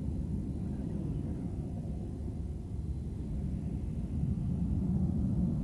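Jet airliner climbing away after takeoff: a low, steady engine rumble that swells slightly near the end.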